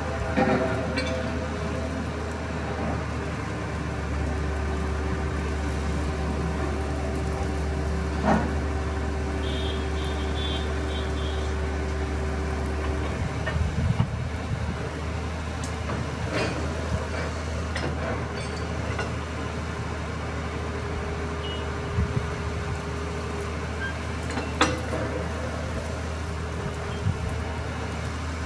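Truck-mounted borewell drilling rig and its ELGi air compressor running steadily with a deep hum and a steady whine. The whine drops out about halfway through and returns, and there are a few sharp metallic clanks at the bore head.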